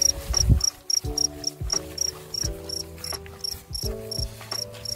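Crickets chirping in a fast, even series, about five high chirps a second, with a low bump about half a second in.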